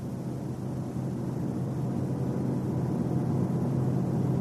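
Car driving at speed: a steady low drone with road noise that grows gradually louder, as the vehicle speeds up.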